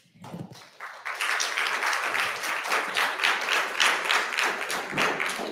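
Audience applause, many hands clapping; it builds about a second in and holds steady.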